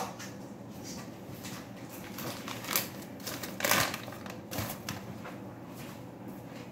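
Rustling and crinkling of a paper packet being handled and opened, among a scatter of light clicks and taps. The two loudest, longest rustles come around the middle.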